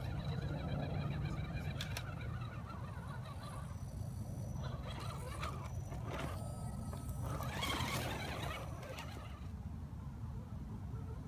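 Axial SCX10 scale RC crawler's electric motor and gears whining as it crawls over roots and dry leaves, with leaves crackling under its tyres in several short stretches and a steady low rumble underneath.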